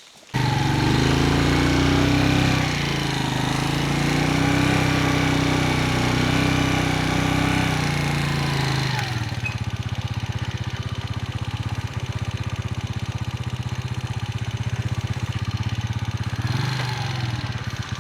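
An engine running steadily, its pitch wavering up and down. About nine seconds in it drops to a lower, rapidly pulsing note.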